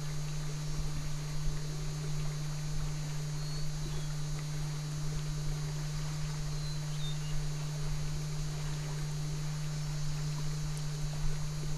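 Steady low hum with a faint background hiss, and a few brief, faint high chirps now and then.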